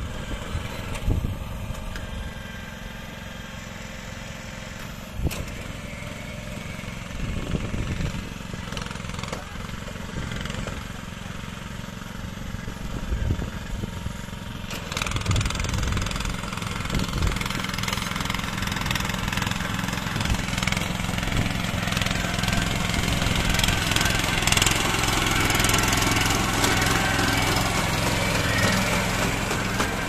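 Small engine of a walk-behind rice transplanter running steadily while it plants seedlings in a flooded paddy. It grows louder from about halfway through as the machine comes close.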